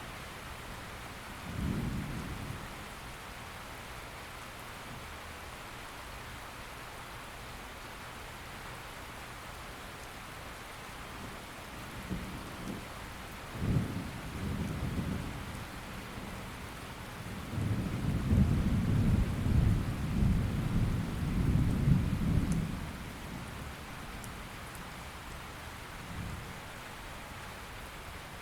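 Steady rain falling, with low rolls of thunder rumbling over it: a short one about two seconds in, another about halfway through, and a longer, louder roll a few seconds later.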